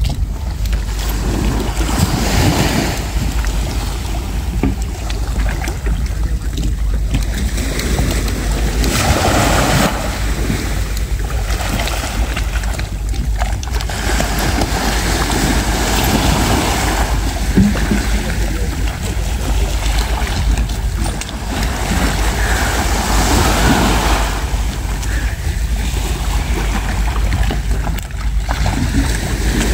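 Wind buffeting the microphone with a steady low rumble, over small waves washing and breaking on the shore in swells every few seconds.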